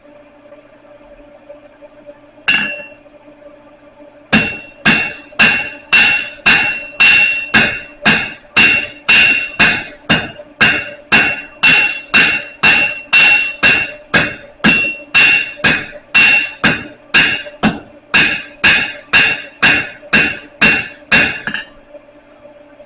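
Blacksmith's hand hammer striking hot steel on an anvil: one blow, then a long steady run of about two ringing blows a second that stops near the end.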